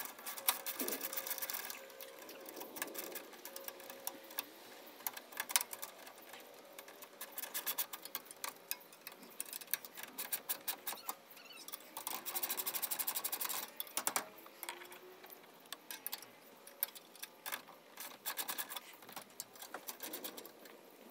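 Hand ratchet clicking in quick bursts of rapid clicks with short pauses between, as nylon lock nuts are run down onto bolts; the nylon insert's drag makes the ratchet necessary.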